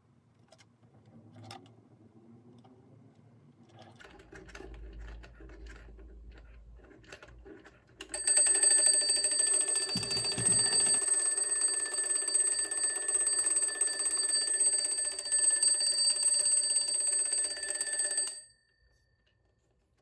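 Twin-bell table alarm clock ringing loudly, its hammer striking rapidly between the two metal bells. The ringing starts suddenly about eight seconds in, runs for about ten seconds and stops abruptly. Before it come quieter handling sounds from the clock being held and turned.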